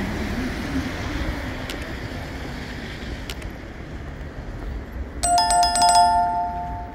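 Steady rumble of a light-rail train pulling away from the platform. About five seconds in, a quick run of clicks and a bright ringing bell tone lasting about two seconds: a subscribe-button and notification-bell sound effect.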